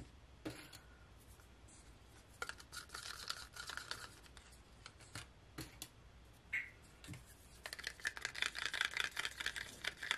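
Wooden craft stick stirring acrylic pouring paint in a plastic cup, scraping quickly against the cup in two spells, with a few light clicks and taps between.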